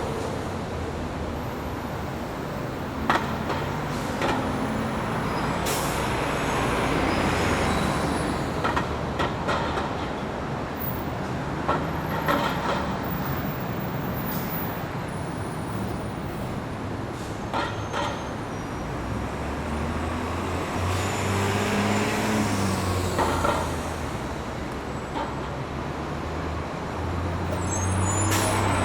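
Bus station ambience: buses' diesel engines idling and pulling through with a steady low rumble, broken by the hiss of air brakes releasing and scattered knocks and clatter.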